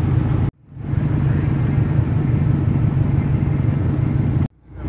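Modified Subaru WRX STI flat-four engine idling through an aftermarket exhaust: a steady low rumble. The sound cuts out abruptly twice, about half a second in and near the end, fading back in each time.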